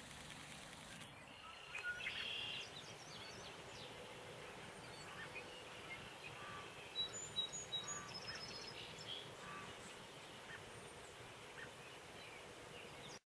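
Faint outdoor ambience with a steady background hiss and scattered short bird chirps and calls, a few louder ones about two seconds in and around the middle. It cuts off suddenly near the end.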